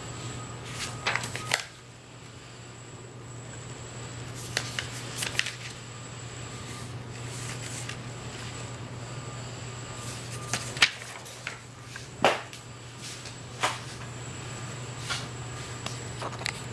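Sheets of paper being handled on a tabletop: short rustles and taps at intervals as paper is lifted and laid down, the sharpest a few single snaps in the second half, over a steady low hum.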